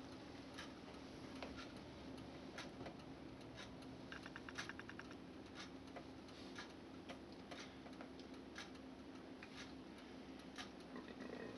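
Faint, irregular clicks, some coming in short quick runs, over a low steady hum.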